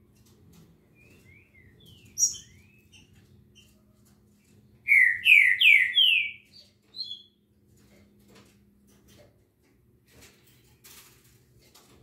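Caged songbirds calling: scattered soft chirps, then a quick, loud phrase of about four notes about five seconds in, followed by two short notes.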